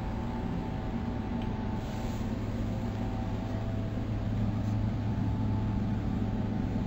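A steady low mechanical hum, even throughout, with a faint steady higher tone above it.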